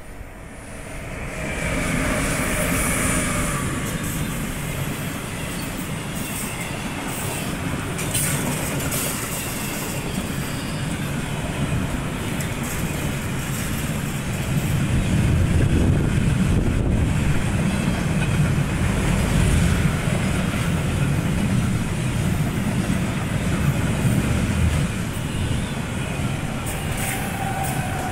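Freight train of double-deck car-carrier wagons, hauled by two Siemens ES64F4 electric locomotives, passing close by. Steady rumble and clatter of wheels on rails, building over the first couple of seconds and loudest past the middle.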